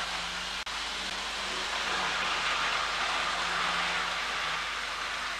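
A model train's electric motor and wheels whirring along the track, heard through a steady hiss. The sound grows louder from about two seconds in as the train nears. The sound cuts out for an instant just under a second in.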